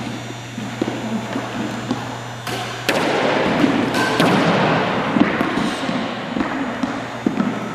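A squash rally: the ball is struck by rackets and hits the court walls, giving a handful of sharp thuds and smacks, the busiest stretch in the middle, along with players' footsteps on the wooden floor.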